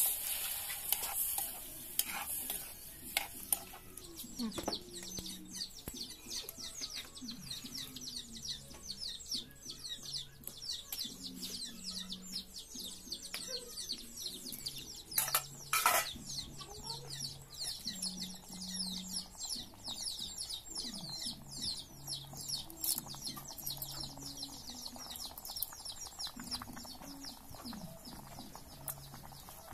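Egg curry simmering in an aluminium kadai over a wood fire, a dense, steady fine crackle of sizzling gravy. A metal ladle stirs it, knocking sharply against the pan a few times, twice in the first few seconds and again about halfway through.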